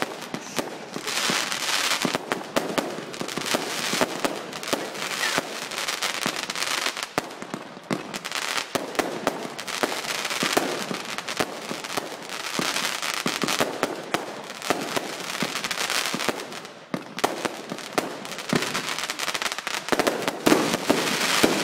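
Fireworks going off in quick succession: a dense run of bangs and crackling star bursts, with a short lull about three quarters of the way through.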